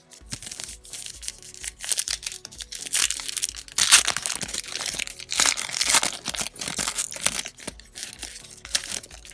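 A trading-card pack wrapper being torn open and crinkled in the hands, in a run of crackling rustles that peaks twice in the middle, over background music with a steady low beat.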